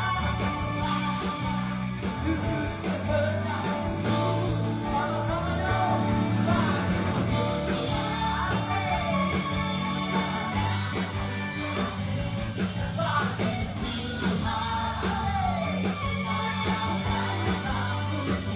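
Praise and worship song: singing over a band with a steady bass line and a regular beat.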